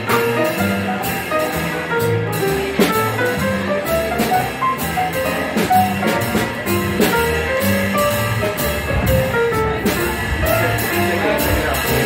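Live jazz from piano, upright bass and drum kit: the piano carries a melody of short stepping notes over the upright bass, with the drums keeping time on cymbals.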